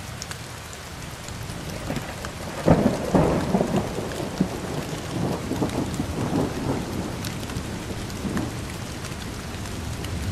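Steady rain with a thunderstorm: a sharp thunderclap about two and a half seconds in, followed by rolling rumbles that die away over several seconds while the rain hiss goes on.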